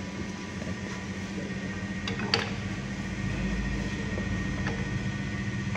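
Steady hum of electric workshop machinery, with a sharp click a little over two seconds in.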